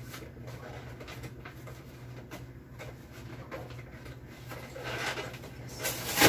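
A plastic food container being handled on a kitchen counter: light clicks and rustling, with one sharp, loud plastic crackle near the end. A steady low appliance hum sits underneath.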